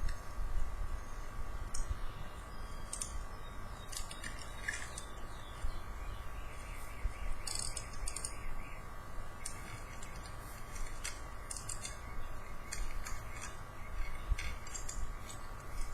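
Scattered short crackles and clicks from handling a boxed toy and its plastic packaging, some in quick clusters, over a steady low electrical hum with a faint whine.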